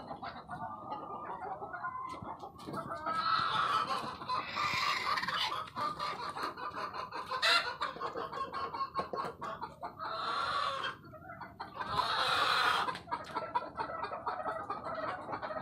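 A flock of ayam kampung, Indonesian native chickens, clucking and calling in a coop, with several longer, louder bouts of calling.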